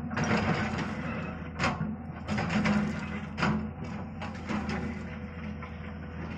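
Excavator at work: its diesel engine runs with a steady low hum while the bucket scrapes and dumps earth, giving several short crashes and scrapes a second or two apart.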